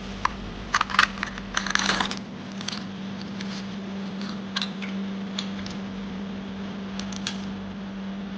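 Sharp clicks and clatters of hard parts being handled, densest in the first two seconds, over a steady low hum.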